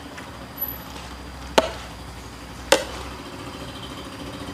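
Two sharp clinks about a second apart, each with a short ring, as a fork and spoon knock against a metal pot while cooked instant noodles are scooped out.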